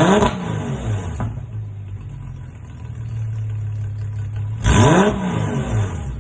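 Porsche engine through a full ORD performance exhaust, idling with a low rumble and blipped twice. One quick rev comes right at the start and another about five seconds in, each rising and falling back to idle.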